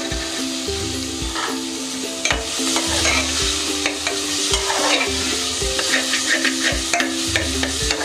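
Green peas sizzling as they go into hot fried masala in a pressure cooker. From about two seconds in, a perforated steel spatula stirs them in, scraping and clicking against the bottom of the pot.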